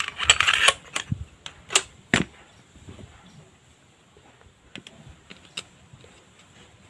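Metal parts of a Honda Revo front fork being put together by hand: a short scrape of the chrome inner tube and damper rod sliding together, then a few sharp metallic clinks over the next two seconds and some faint taps later as the tube is worked into the lower slider.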